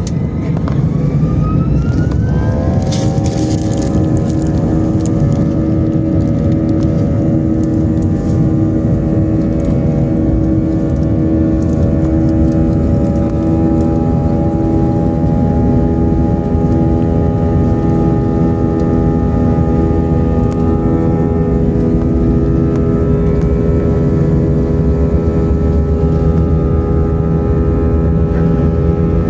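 Aircraft engines spooling up, a whine rising in pitch over the first few seconds, then running steady at high power under a heavy rumble.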